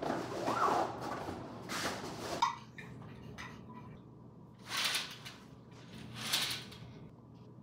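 Rustling and handling noise, then curtains being slid open along their rod: two short swishes in the second half.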